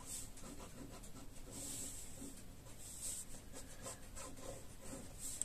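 Pen scratching across paper as lines are drawn, a series of short irregular strokes with a dry, high-pitched scratch.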